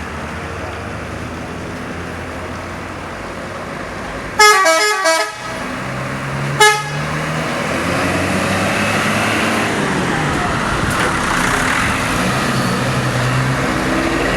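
Subur Jaya bus's telolet horn playing a quick run of notes for about a second, then one more short toot. Road noise from engines grows louder afterwards.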